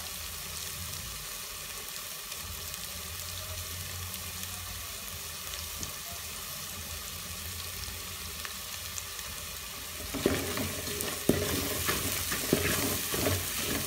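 Fried onions, garlic and spices sizzling in oil in a metal pot, a steady hiss. About ten seconds in, a wooden spoon starts stirring the mixture, adding louder scraping and knocks against the pot.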